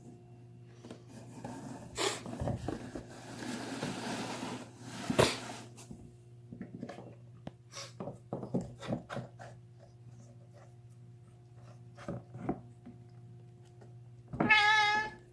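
Cat gnawing and crunching on a bone, with scattered cracks and clicks of teeth on bone. Near the end comes one loud, drawn-out yowl, part of an unusual screaming that the owner thinks may have to do with the cat being deaf.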